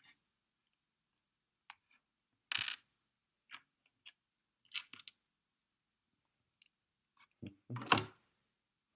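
LEGO plastic bricks clicking and clattering as pieces are handled and pressed onto the build: scattered sharp clicks with gaps between them, a louder clatter about two and a half seconds in and the loudest one near the end.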